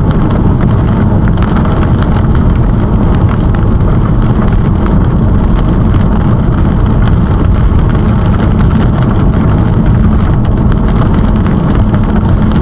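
Steady road and wind noise of a car driving in the rain, with a heavy low rumble.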